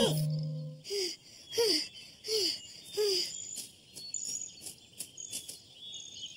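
Cartoon sound effects: four short squeaks that fall in pitch, about two-thirds of a second apart, then faint high chirps and ticks like birds and insects in a meadow.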